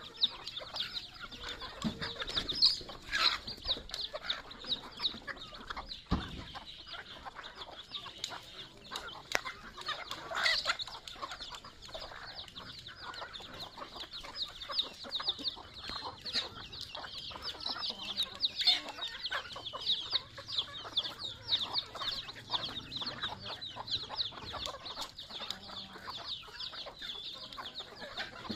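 A flock of native chickens feeding, hens clucking while chicks peep rapidly and continuously in high, short, falling notes, with scattered sharp taps of pecking.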